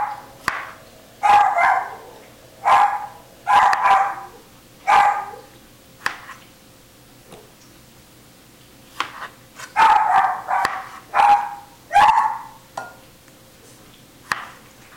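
A dog barking in short, loud barks: a run of about six over the first five seconds, a pause, then another run of about five between roughly ten and twelve seconds in. A few faint knife taps on a cutting board fall between the barks.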